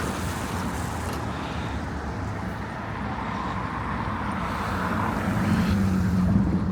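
A motor vehicle passing close on a street, its engine hum and tyre noise growing louder towards the end, over a steady background of traffic.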